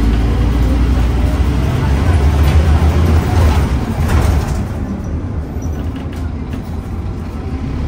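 Scania OmniCity bus's diesel engine and drivetrain heard from inside the passenger saloon while under way: a steady low drone, with a rushing hiss that swells and fades between about two and four seconds in.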